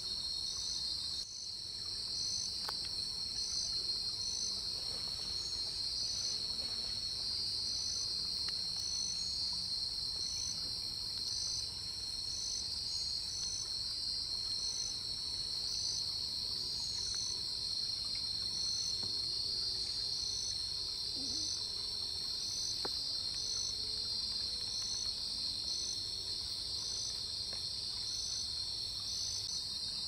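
Steady chorus of crickets and other insects trilling, with a short chirp repeating at a regular pace above the continuous high drone.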